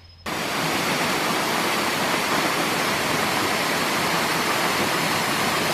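Russell Falls, a waterfall, pouring steadily over rock ledges: an even, continuous rush of falling water that starts abruptly a moment in.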